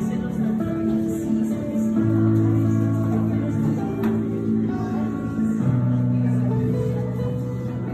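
Slow, calm instrumental worship music: held chords that change twice.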